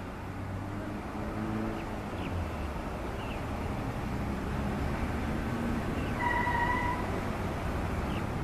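Distant engine rumble carrying across open fields, with scattered short high chirps and a brief steady tone about six seconds in.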